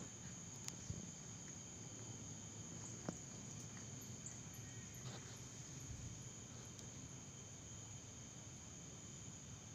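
Night insects, crickets, trilling in a steady high drone, with a faint run of repeated high chirps, about two to three a second, through the middle and a low steady background rumble beneath.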